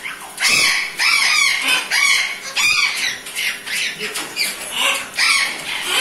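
Sulphur-crested cockatoo calling in a rapid string of short, harsh squawks, about two a second.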